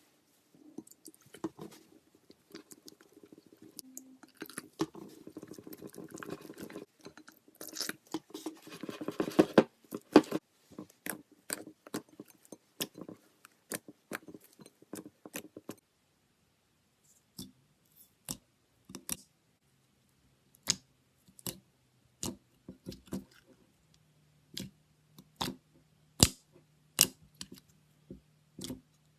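Slime being handled: a dense run of wet crackling pops and clicks that peaks about halfway through, then, after a pause, single sharp pops every second or so.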